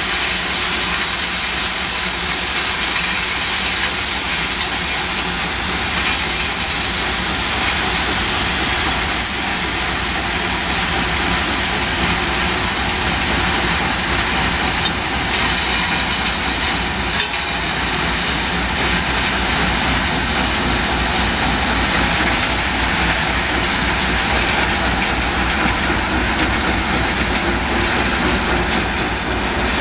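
Railway work train or track machine running on newly laid track: a steady heavy rumble with rail clatter.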